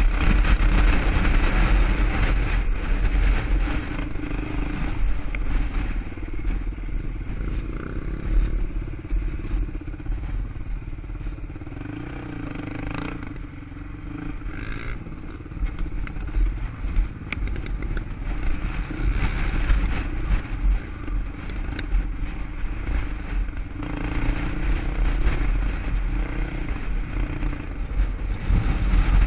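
ATV engine running under way, dropping quieter for a few seconds around the middle of the stretch and then picking back up.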